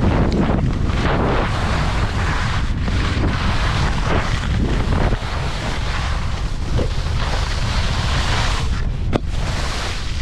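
Wind buffeting the microphone while skiing downhill: a loud, steady rumble with no break.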